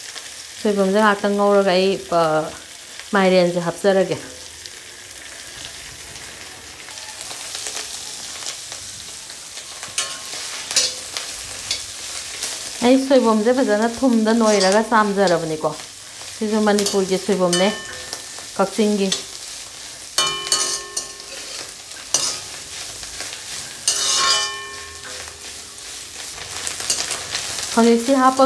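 A metal spatula stirs and scrapes a stir-fry of fermented bamboo shoot, dried fish and chillies around a wok while it sizzles in oil. In several spells the scraping strokes give a pitched squeak.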